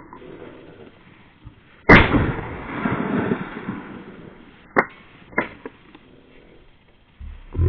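A single shotgun shot about two seconds in, sharp and loud, its report rolling away for about a second and a half. Two short sharp clicks follow a few seconds later.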